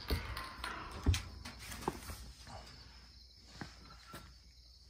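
A few sharp knocks and clinks as canning jars are handled in a pot of boiling water on a propane turkey-fryer burner, over a steady high chirring of night insects.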